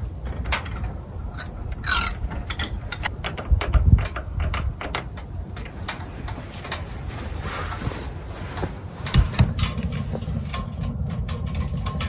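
Scattered clicks and metallic knocks of metal parts being handled as heatsink-cooled thermoelectric generator modules are fitted against a stovepipe, with dull thumps about four seconds in and again about nine seconds in.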